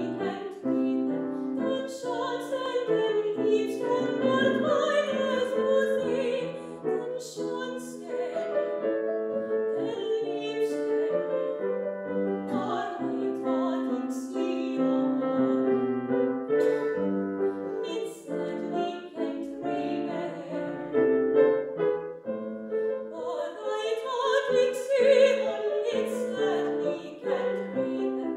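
A woman singing a classical art song in German, in a trained operatic voice with vibrato, accompanied by piano.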